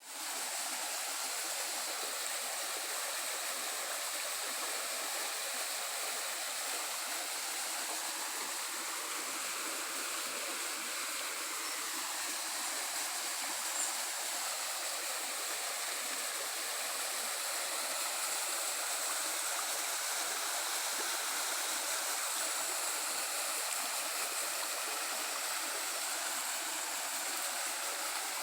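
Waterfall: a steady rush of falling, splashing water that holds evenly throughout.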